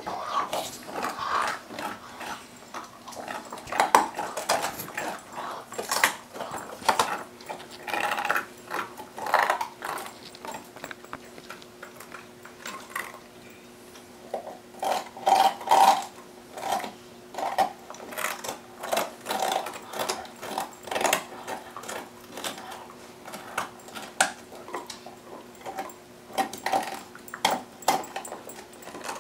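Dogs chewing on bones: irregular crunches and clicks of teeth on bone, with a faint steady hum beneath.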